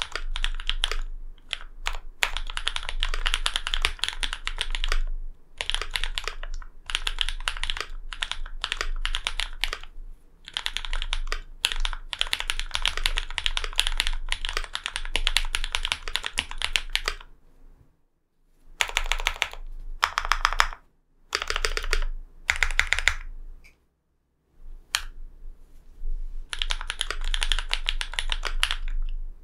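Typing on a LINWORKS Whale75 custom mechanical keyboard with lubed linear switches (Cherry MX Black housings with NovelKey Cream stems), an aluminium plate and GMK keycaps. The keystrokes come in dense runs, with short pauses about 18 and 24 seconds in.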